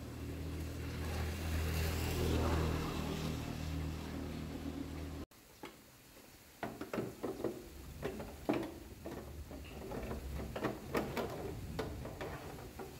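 A steady low mechanical hum that stops abruptly about five seconds in, followed by a run of irregular light clicks and knocks.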